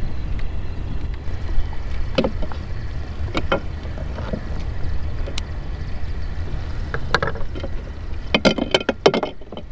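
Steady low rumble of wind and water around a small wooden boat, with a few sharp knocks and clicks, a quick run of them near the end.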